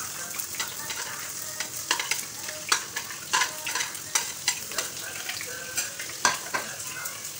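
Chopped onions sizzling in hot oil in a non-stick frying pan, with a metal spoon clinking and scraping irregularly against the pan and a plate as the onions are pushed in and stirred.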